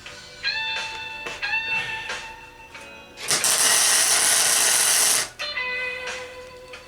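Electric guitar background music, cut about three seconds in by a loud, even two-second burst of welding-arc crackle that starts and stops abruptly, as a weld is laid on the steel pipe anvil.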